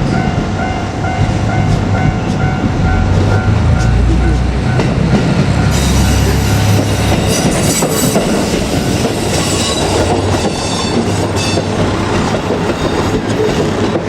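JR Kyushu KiHa 200 diesel railcar passing over a level crossing: the diesel engine runs under the clack of wheels over rail joints. A pulsing warning tone, the crossing's bell, sounds at first and stops about five seconds in.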